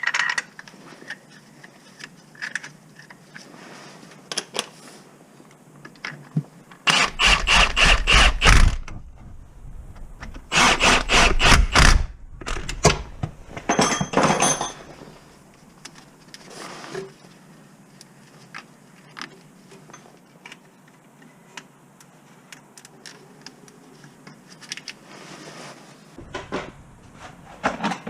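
A cordless power tool run in two bursts of about two seconds each, with a shorter one after, amid clinks and scrapes of hand tools on metal.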